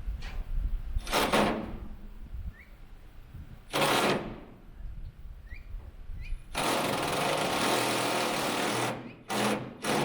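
Handheld power tool fixing a sheet of wall cladding, run in five bursts: two short ones, one of about two seconds, then two short ones near the end. Faint bird chirps sound between the bursts.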